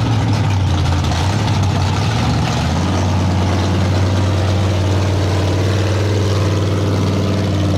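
Engine of a lifted 1971 Ford pickup mega truck running at low revs as the truck rolls slowly; the steady engine note settles to a more even pitch about three seconds in.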